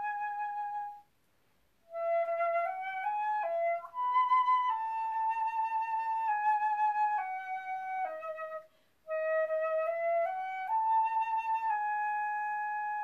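Concert flute playing a slow hymn melody: a held note with vibrato, a short break for breath about a second in, a rising phrase of stepwise notes, another breath near the middle, then a phrase that climbs and ends on a long held note.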